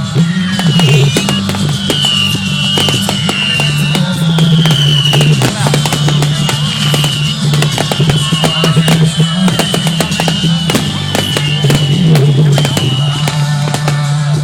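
Fireworks display: rapid crackling and popping bursts with a string of falling whistles, heard over loud music playing.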